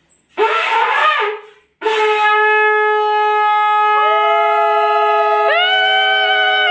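Conch shell (shankha) being blown. After a brief breathy rush, a long steady note sets in just under two seconds in. A higher tone swoops in about four seconds in and again about five and a half seconds in, and the note wavers near the end.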